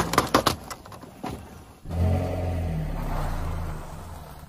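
Aluminium drink cans crunching one after another under a car tyre, the crunches thinning out within the first second or so. About two seconds in, a car engine takes over, running steadily at low revs, and fades away near the end.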